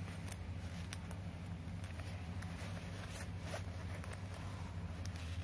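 Jacket zipper being worked by hand, its newly fitted slider run along the teeth to test it: scattered small clicks and rasps, over a steady low hum.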